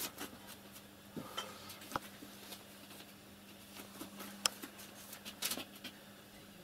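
A kitten moving about on a plywood box, with scattered light taps, scratches and clicks and one sharper click about halfway through, over a steady low hum.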